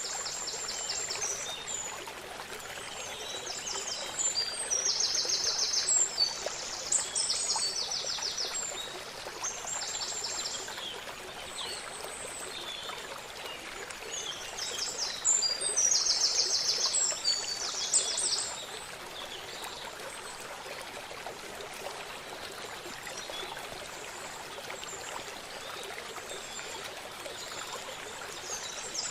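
River water flowing steadily. A songbird sings rapid trilled phrases over it several times in the first two-thirds, then only the water is heard.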